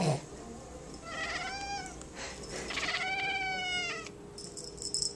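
Maine Coon cat giving two drawn-out meows while watching a feather toy, the second longer and louder. A short knock comes right at the start, and light rattling clicks come near the end.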